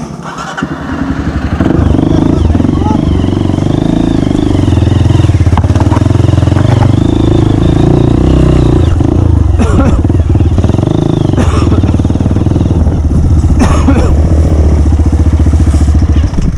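Dirt bike engine running loud and close, the revs swelling over the first two seconds and then held high with small rises and dips, as a rider pushes across a rough ravine crossing. A few sharp knocks come through it.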